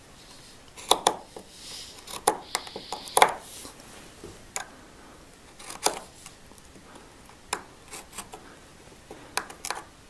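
Small knife slicing through leather strap around a bolt head to round off its end: a series of irregular short cuts and scrapes, about a dozen in all, with a longer scraping stroke a couple of seconds in.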